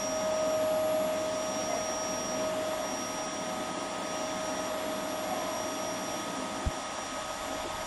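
Canister vacuum cleaner running steadily, a constant motor whine over the rush of air through the hose. A single short low thump about two-thirds of the way through.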